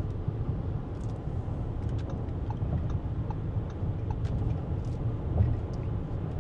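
Steady road noise inside an Audi Q7's cabin while cruising on the highway: a low rumble from tyres and engine, with a few faint clicks.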